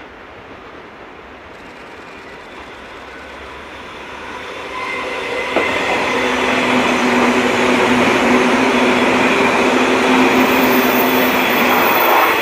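JR 185 series electric multiple unit passing close by. Its running noise grows louder from about five seconds in and stays loud as the cars go past, with a steady whine over the wheel noise.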